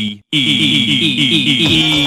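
Music: a quick run of short falling notes, about six a second, over a steady high tone, after a brief cut to silence just after the start.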